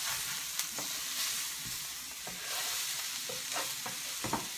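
Sliced onions sizzling in a hot frying pan while a wooden spatula stirs and scrapes through them, with scattered scraping clicks and one sharper knock of the spatula against the pan near the end. The pan is hot enough that the green onion is starting to burn.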